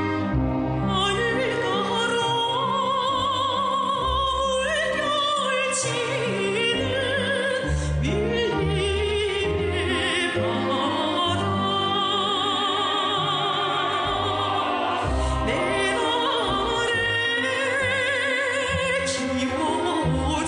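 Music: a song with a singer whose voice wavers with strong vibrato, over instrumental accompaniment with a steady bass.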